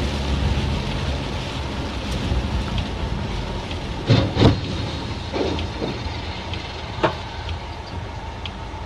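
Steady tyre and road noise on a wet road, heard from inside a car with the rain. About four seconds in come two loud bangs close together as a container lorry crashes across the road, followed by a few softer knocks.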